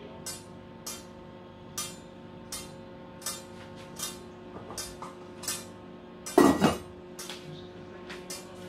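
Stainless steel lid set onto a stainless steel skillet with one clattering metallic clink about six seconds in. Under it runs a steady row of light ticks, a little more than one a second.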